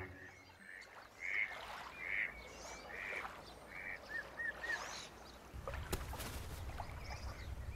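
Faint duck quacking, single calls about one every second, followed by three quick short chirps.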